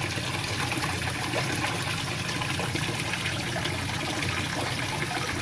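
Pump-fed water pouring steadily into a reservoir tank as it is deliberately overfilled to trip the float switch, with a steady low hum underneath.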